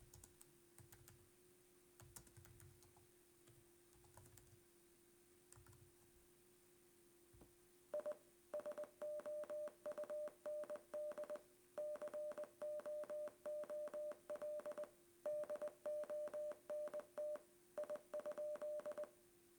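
Morse code playback from a phone app: one steady mid-pitched beep keyed on and off in short and long tones (dots and dashes), the encoded sentence coming in about four runs with short pauses between. It starts about eight seconds in, after a few faint taps.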